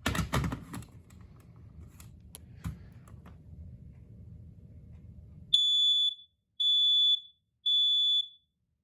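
First Alert SA304 ionization smoke alarm handled with a few clicks, then sounding three loud, high-pitched beeps in the standard temporal-three fire alarm pattern as it is tested.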